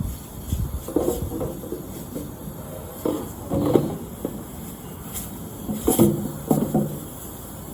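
Irregular knocks and clatter of a furnace blower housing and wheel being handled, with a few louder clunks about a second in, in the middle and near 6 to 7 seconds.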